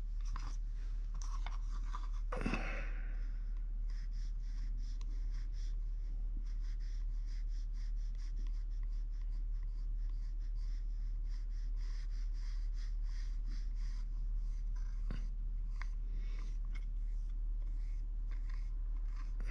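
Wire loop sculpting tool scraping oil-based modelling clay in many short, quick strokes, with a steady low electrical hum underneath.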